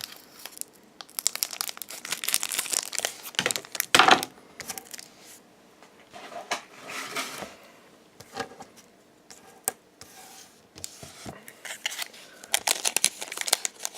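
Foil trading-card booster pack wrapper crinkling and crackling as it is handled and opened, in irregular spurts, loudest about four seconds in and again near the end.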